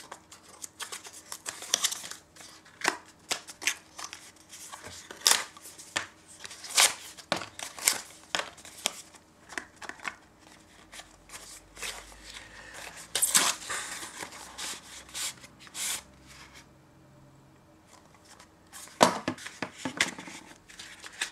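Small cardboard box and plastic packaging being opened and handled: irregular crinkles, rustles and sharp clicks, with a quieter stretch of about two seconds near the end.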